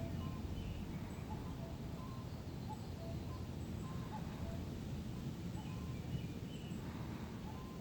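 Steady low wind rumble in a forest, with faint, scattered short bird chirps over it.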